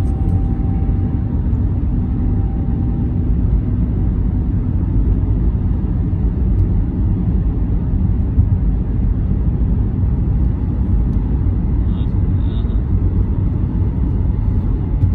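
Steady low rumble of road noise inside a moving car's cabin at highway speed.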